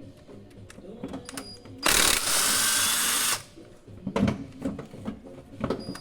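A power tool runs in one burst of about a second and a half in the middle, with small clicks and knocks of metal parts being handled before and after it.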